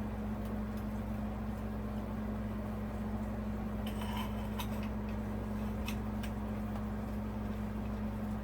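A steady low hum throughout, with a few light clinks of a glass light shade being handled, about four seconds in and again near six seconds.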